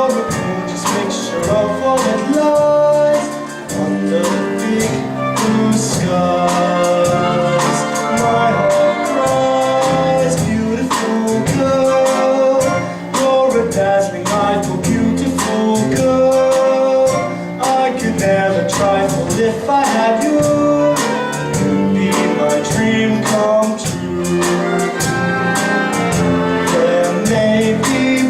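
Show music from a stage musical, with a steady beat and some singing.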